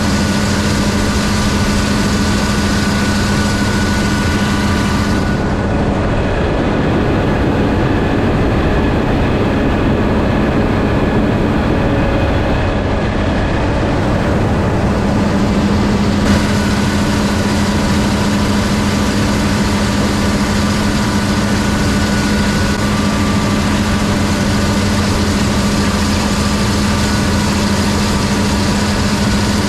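A steady machine hum with a constant low tone and a few fainter higher tones. Its sound changes for about ten seconds from about five seconds in.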